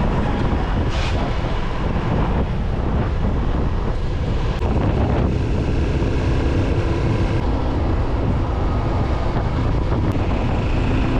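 A motorcycle underway: a steady low engine drone under wind noise on the microphone. The sound changes character abruptly a few times.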